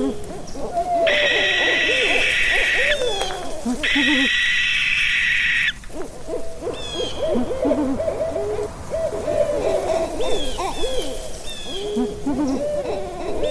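Several owls hooting, with many short, overlapping calls. Two long, harsh screeches come over them, one about a second in and one about four seconds in.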